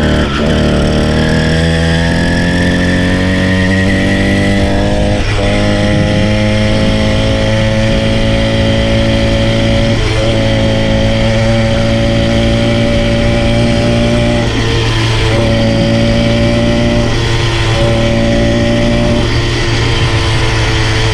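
Small kit engine of a motorised push bike running under way, its pitch climbing over the first five seconds as it speeds up, then holding steady with a few brief dips as the throttle eases off.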